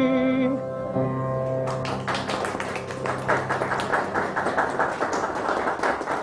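The final held note of a sung bolero, with vibrato, ends about half a second in over the band's closing chords. About two seconds in, an audience breaks into steady applause.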